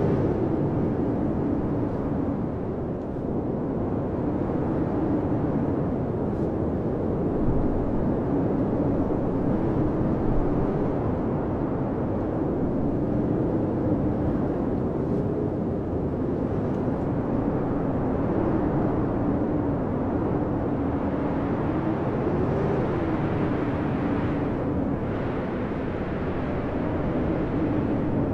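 Blizzard wind howling: a steady low rush with a moaning tone that wavers up and down.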